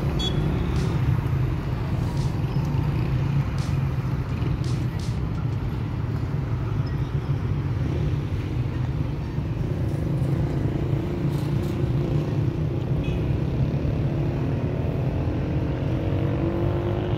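Steady city street traffic: cars and motorbikes running past, with a constant low rumble of engines and tyres. Near the end a single engine note rises in pitch.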